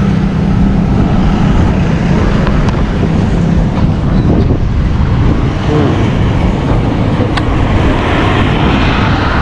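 Motorcycle engine running while riding, with wind noise on the microphone.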